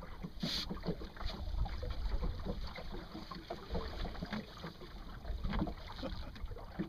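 Water lapping against the hull of a small sailboat under way in light wind, with many small irregular ticks and splashes and a low wind rumble on the microphone. A brief hiss comes about half a second in.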